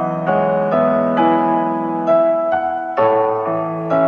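Background music: a slow keyboard melody over held chords, with a new note struck about every half second.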